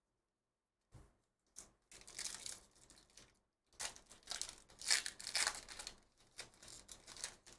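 Foil wrapper of a 2023 Panini Certified Football hobby pack being torn open and crinkled by hand, in an irregular string of rustles starting about a second in.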